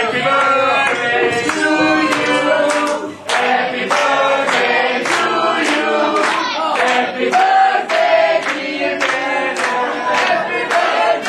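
A group of party guests singing a birthday song together, clapping along in a steady beat.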